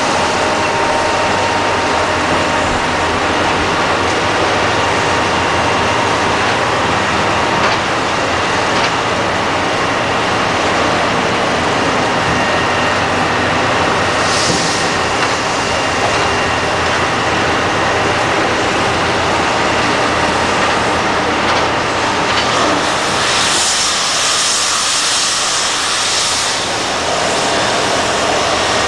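Liebherr R962 hydraulic crawler excavator working, its diesel engine and hydraulics running steadily under load as the bucket digs through broken rock, with brief bursts of higher hiss about halfway and again around three-quarters through.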